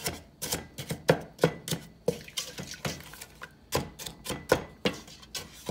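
Wooden spoon stirring thick barbecue sauce in a stainless steel pot: irregular knocks of the spoon against the pot, about two or three a second, with wet sounds of the sauce.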